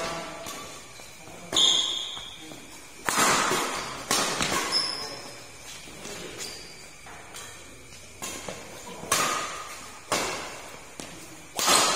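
Badminton rally: sharp cracks of rackets striking the shuttlecock, about eight or nine at uneven intervals, each trailing off in the hall's echo, with brief high squeaks of shoes on the court between them.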